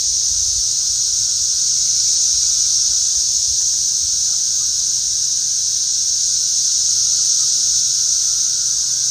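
A dense chorus of cicadas: a loud, steady, high-pitched droning hiss that never breaks.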